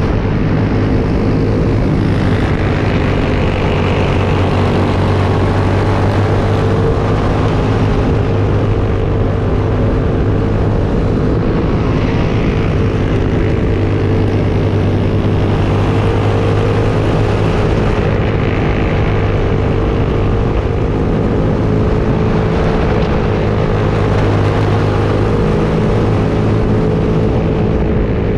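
Clone single-cylinder four-stroke racing kart engine running hard at high revs, a loud steady drone whose pitch wavers only slightly through the turns.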